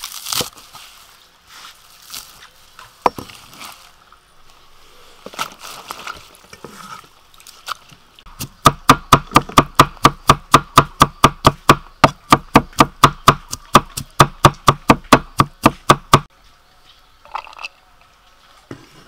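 Cleaver chopping peeled garlic on a thick wooden chopping block. From about midway there is a fast, even run of chops, about five a second, for some eight seconds. Before that come a few scattered knife cuts and knocks from slicing greens on the block.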